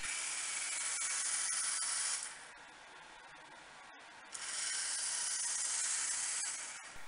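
FireBird V robot's two DC wheel motors whirring as the robot drives forward for about two seconds. They stop for about two seconds, then whir again for about two seconds as it reverses.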